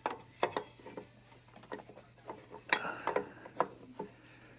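Light clinks, taps and knocks of metal parts and hand tools being handled, with one louder scrape a little under three seconds in.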